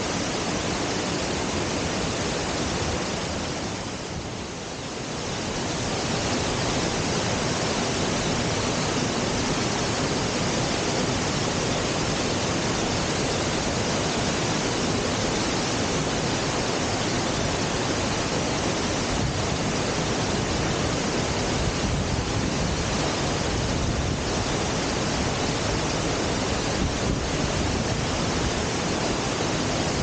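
Waterfall pouring over rock ledges into a pool: a steady rush of falling water that dips briefly quieter about four seconds in.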